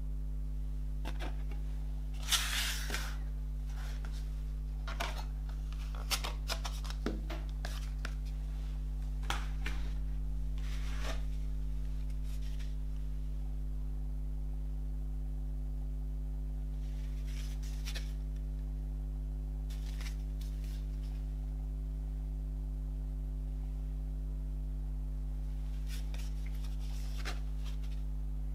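A CD, its card case and its paper booklet being handled: scattered brief rustles, slides and light taps of card and paper, most of them in the first dozen seconds. A steady low hum runs underneath.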